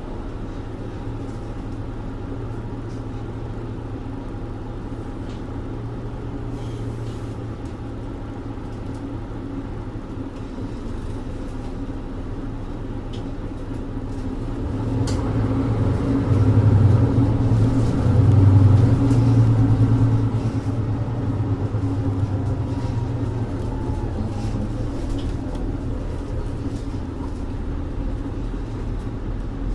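Mercedes-Benz Citaro 2G bus's OM470LA inline-six diesel engine with ZF EcoLife automatic gearbox, heard from inside the bus. The engine runs steadily for the first half. It then gets louder for several seconds as the bus pulls harder, and eases back near the end, with light rattles from the body.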